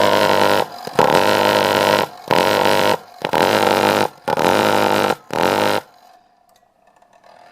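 Lennox pulse furnace firing with its muffler removed: a loud, rapid pulsing drone that comes in about six spurts of half a second to a second, breaking off and catching again, then dies out about six seconds in. The stuttering is the furnace starved by too small a natural gas line.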